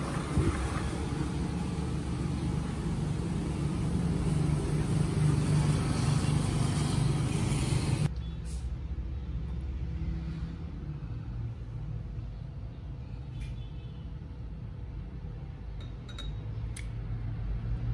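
Road-vehicle noise: a low rumble with a wide hiss that builds over several seconds and cuts off abruptly about eight seconds in. After it comes quieter room tone with a few faint clicks near the end, as thick strawberry purée is poured into a glass.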